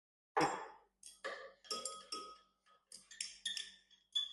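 Stirring rod clinking against the inside of a glass vessel while concentrated hydrochloric acid is stirred into water to dilute it. About a dozen irregular sharp clinks, several of them ringing briefly.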